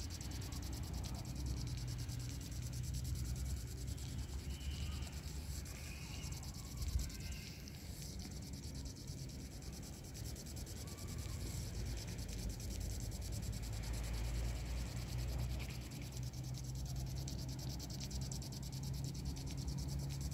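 Low, uneven outdoor rumble, typical of wind on a phone microphone. A few faint, short, high chirps come about five seconds in, and a brief bump about seven seconds in.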